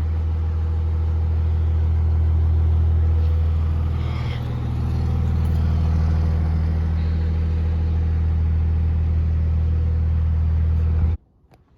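Tractor engine running steadily under load, with a brief dip in level about four seconds in; it starts and cuts off abruptly.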